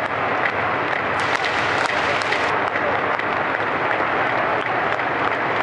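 Large ballpark crowd applauding steadily.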